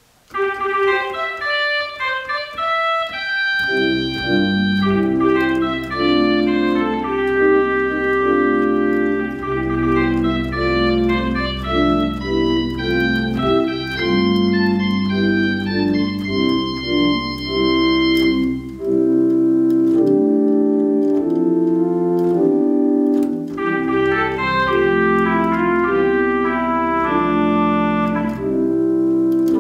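Allen digital organ being played, with chords and melody on the manuals. A deep pedal bass line joins about three seconds in and drops out a little past the middle.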